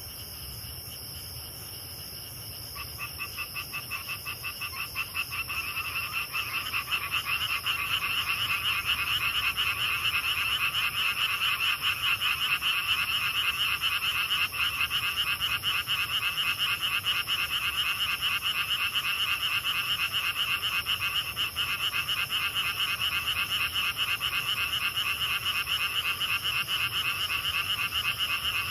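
A chorus of frogs calling at night over a steady, high-pitched trill of grass insects. The frogs come in about two or three seconds in and build over several seconds into a loud, rapid, continuous pulsing chorus.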